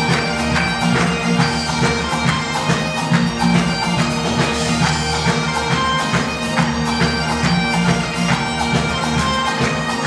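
Highland bagpipes playing a dance tune, the drones holding steady under the chanter's quick-changing melody.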